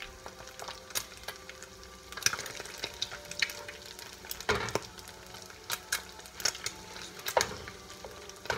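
Eggs frying in a pan, with a plastic spatula scraping and tapping against the pan. There are a dozen or so sharp taps at irregular intervals.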